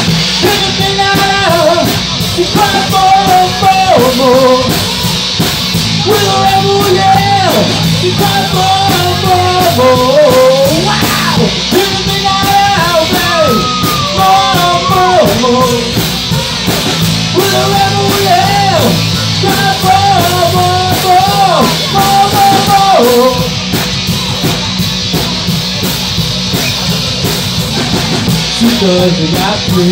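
Live rock band playing: a lead vocalist singing over electric guitars, drums and keyboard. About two-thirds of the way through the singing stops and the band carries on, slightly quieter.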